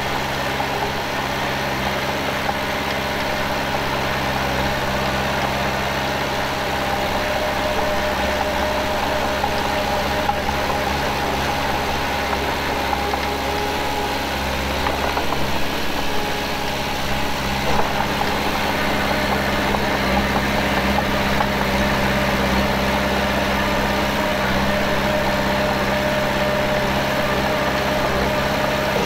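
Heavy earthmoving machine's diesel engine running steadily, with a thin whine over the engine note.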